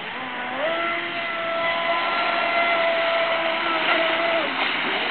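A Traxxas Spartan RC boat's brushless motor, on 4S lipo power from two 2S packs, whines at full speed. Its pitch rises about half a second in, holds steady, then drops near the end as the throttle eases.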